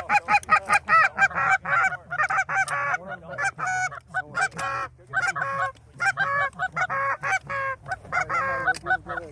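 Goose honking: a rapid run of loud, clipped honks about five a second, breaking into shorter runs with brief gaps.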